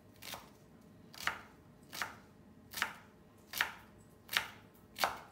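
Chef's knife chopping a shallot on a wooden cutting board: about seven slow, evenly spaced strokes, roughly one every three-quarters of a second, each a sharp tap of the blade through the shallot onto the wood.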